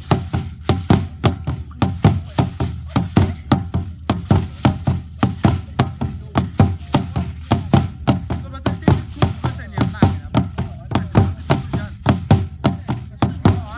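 Large drum beaten in a steady, even rhythm of about three strikes a second, with voices singing along.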